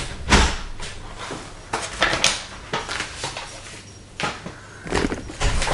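Paper flour bag crinkling and rustling in a series of separate bursts as the last of the flour is shaken out into a stainless steel bowl, then the bag is handled and put aside.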